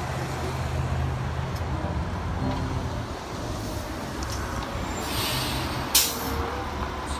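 Compressed-natural-gas city transit bus running, its engine a steady low hum over road noise, with a short pneumatic hiss of air about six seconds in.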